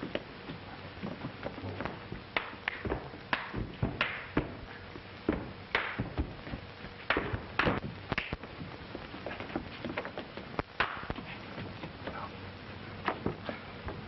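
Irregular series of sharp knocks and thuds, a dozen or more, some louder than others, over the steady hiss of an old film soundtrack.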